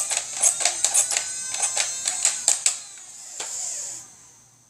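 Rapid, uneven plastic clicking and rattling from a toy Nerf blaster being worked by hand. A last click comes about three and a half seconds in, followed by a short hum before it fades out.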